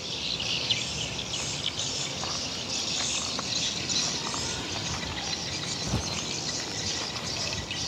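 Steady high chirping of insects and birds, with one soft thump about six seconds in.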